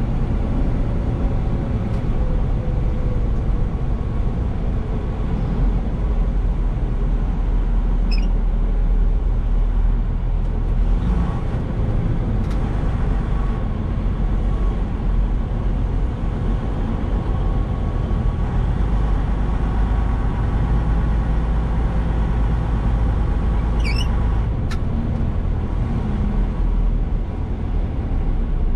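Semi truck's diesel engine running steadily at low speed, heard from inside the cab, with some road noise as the truck rolls.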